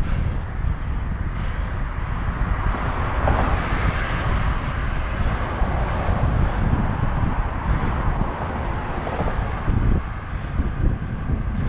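Wind rushing over the microphone of a camera on a moving bicycle, with the noise of a passing vehicle swelling from about three seconds in and fading away again by about nine seconds.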